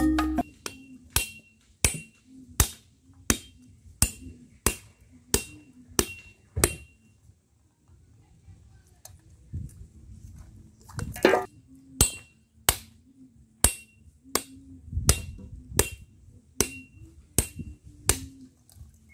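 A machete striking the hard shell of a husked coconut held in the hand, to crack it open. The sharp knocks come steadily at about one and a half a second, each with a brief metallic ring. They break off for a few seconds midway, start again with one louder knock, and go on steadily.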